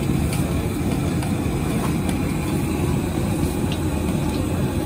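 High-pressure gas wok burner running with a steady low roar under an empty, oiled wok, with a few faint clicks on top.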